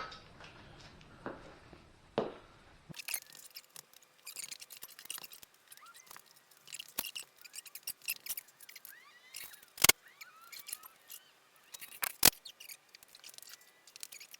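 Scattered light clicks and clinks of hand tools being handled at the motorcycle's rear wheel, with two sharper metallic clicks in the second half.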